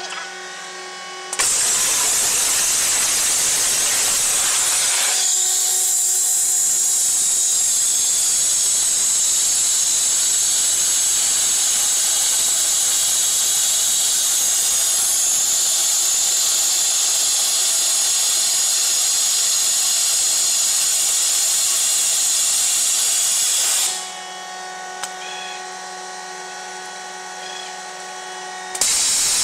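Waterjet cutting machine's high-pressure jet hissing loudly as it cuts through square steel tube. The jet comes on about a second and a half in. It cuts off a few seconds before the end, leaving a quieter machine hum with several steady tones, then comes back on just before the end.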